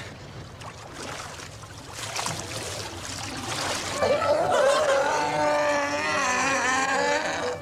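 Water splashing and sloshing around a man wading chest-deep in a pool. About four seconds in, a crowd of adults and children starts laughing and calling out, and music comes in beneath it.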